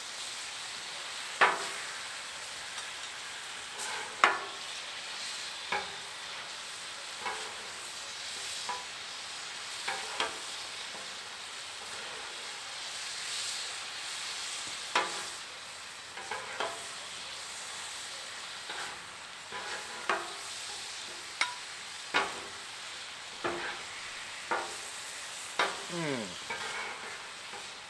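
Pieces of steak sizzling in teriyaki sauce on a Blackstone flat-top griddle, a steady frying hiss. Metal spatulas click and scrape against the steel every second or two as the meat is stirred.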